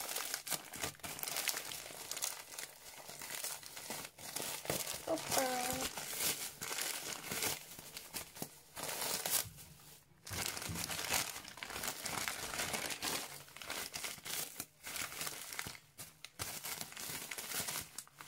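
Bubble wrap and plastic packaging crinkling and crackling as hands unwrap a parcel, in irregular spurts with a few short pauses.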